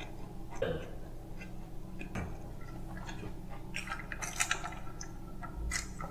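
Quiet mouth sounds of a man chewing, then sipping water through a straw from a plastic tumbler, with a cluster of small crackly slurping clicks about four seconds in.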